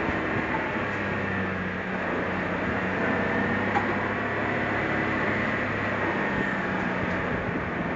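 Suzuki Jimny driving, its engine running steadily under tyre and road noise; a low engine tone fades out about six seconds in.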